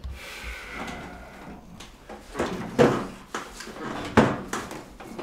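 Irregular knocks and clatter of household objects being handled, like a drawer or cupboard, with a short creak at the start and two sharper knocks partway through.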